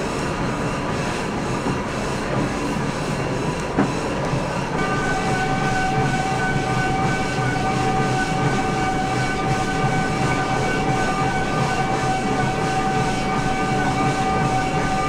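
Steady, loud mechanical rumble and hiss, joined about five seconds in by a steady whine of several pitches that holds on.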